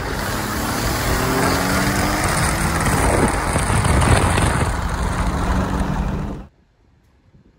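Exhaust of a tuned Infiniti Q50 V6 running loud, its engine note sliding in pitch with a louder surge about four seconds in, then cutting off abruptly.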